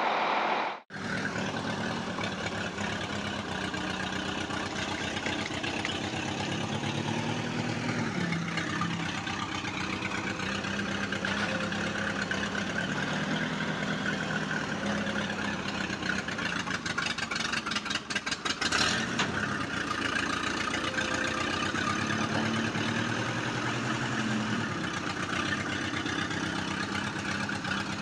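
Heavy vehicle engine sound idling steadily, its revs rising and falling now and then. It cuts out briefly just under a second in, and there is a spell of rapid clattering clicks about two thirds of the way through.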